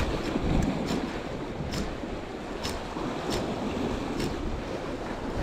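Sea waves washing and breaking against shoreline rocks, with wind buffeting the microphone. A few faint sharp ticks sound over it about a second apart.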